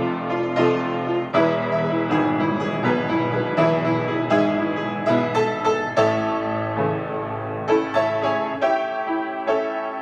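Grand piano being played, with notes and chords struck one after another, several a second, and left ringing.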